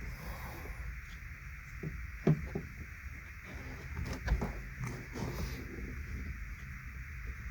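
Scattered light clicks and knocks of a plastic brake-light bulb socket being worked in and out of a car's tail lamp housing by hand, the sharpest knock about two seconds in, over a steady background hiss.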